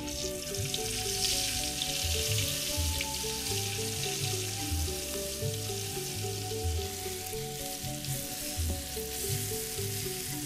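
Ground spice paste sizzling as it is fried in hot oil in an aluminium wok, the hiss starting suddenly as the paste drops in, and carrying on while a metal spoon stirs it.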